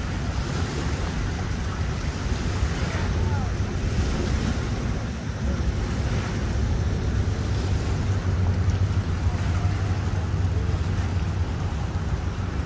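Wind buffeting the microphone over lake water washing and lapping against a boat ramp, with a low steady rumble underneath.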